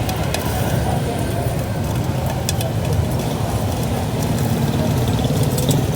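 Steady low rumble of motor traffic and running engines on a city street, with a few light clicks and knocks.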